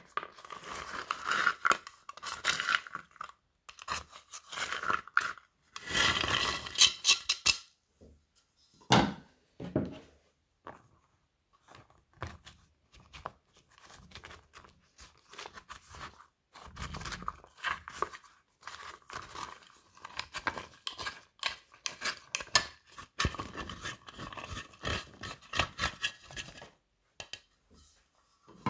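Dried, crusty top layer of iceberg slime being cracked and scraped apart with a plastic spatula: dry crackling and crunching in irregular bursts, with short pauses.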